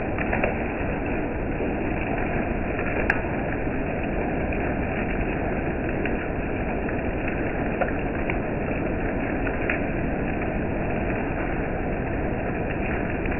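Steady rain falling, an even hiss with a few sharp drop taps scattered through it.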